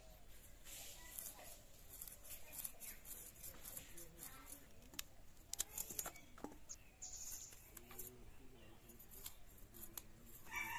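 Faint, irregular crisp clicks and snips of curved knife blades: flat bean pods being cut into pieces over a steel bowl, with the scraping of snakehead fish being scaled on a blade.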